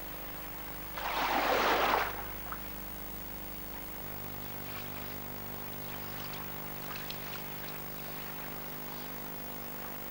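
A single splash of water on the river about a second in, lasting about a second, over a faint steady flow of water and a low hum.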